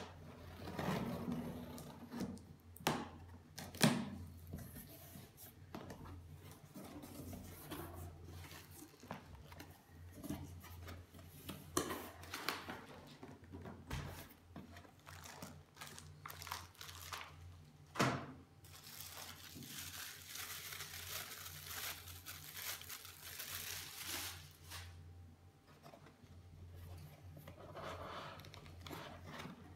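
Box packaging being opened by hand: plastic wrap tearing and crinkling, cardboard flaps and packing handled, with a few sharp knocks and a longer stretch of steady rustling about two-thirds of the way in.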